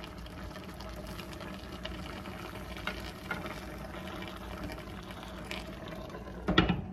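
Skate braise simmering in a frying pan, a steady bubbling hiss with a few light taps of a wooden spoon. Near the end a glass lid is set on the pan with a clank, the loudest sound.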